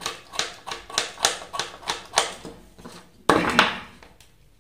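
Small knife blade scraping the enamel insulation off the end of a copper coil wire in quick repeated strokes, about three or four a second, with one longer, louder scrape about three seconds in.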